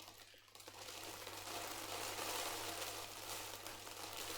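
Rolled oats being poured into a plastic bottle: a steady, hissing rustle of dry flakes sliding in. It swells a little midway and eases off near the end.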